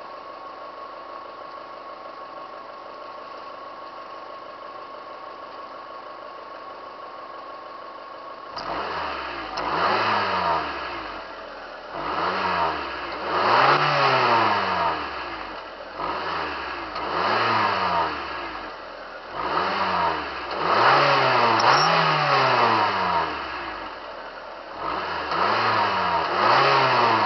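2002 Mazda Protege5's 2.0-litre four-cylinder engine heard at the exhaust tip: idling steadily, then from about eight seconds in revved in a string of about ten quick blips, each rising and falling, mostly in pairs and threes.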